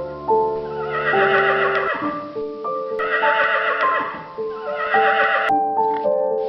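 A horse whinnies three times, each neigh a little under a second long, over background music of steady stepping notes.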